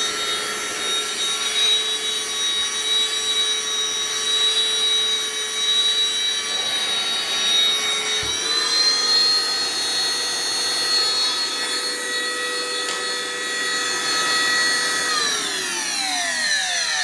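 Hoover Floormate FH40150 floor cleaner's motor running with a steady whine, which the owner says sounds horrible and fears may start to smoke. About halfway a knock is heard and the pitch steps up a little; near the end it is switched off and winds down, its pitch falling.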